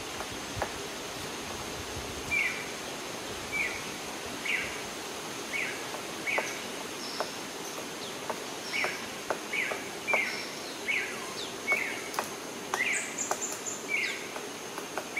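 Tropical forest ambience: a bird repeats short, falling chirps, a dozen or so spaced a second or less apart with a brief pause midway, over a steady high insect drone and scattered sharp ticks.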